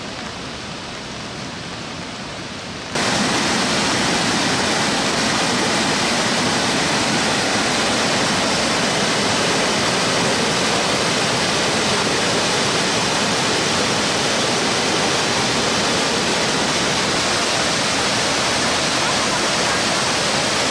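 Waterfall: a steady rush of falling water that jumps suddenly louder about three seconds in and then holds level.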